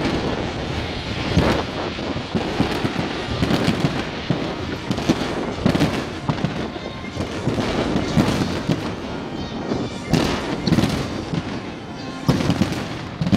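Fireworks display: a dense, continuous barrage of bangs from aerial shells bursting and from comets launched from the pier, with crackling between the louder reports.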